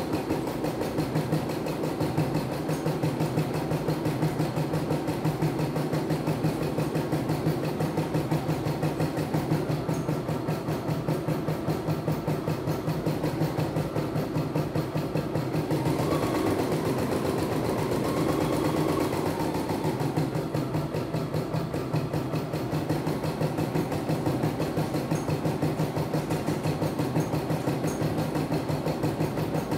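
CNY E960 computerized embroidery machine stitching a design, a fast, even needle rhythm with the hoop carriage shifting under it. For a few seconds past the middle, the rhythm blurs into a smoother whir with a faint whine, then the steady stitching returns.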